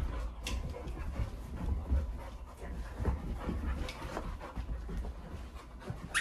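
Golden retriever play-wrestling with a person: the dog panting and scuffling, with irregular thumps of paws and feet on the floor.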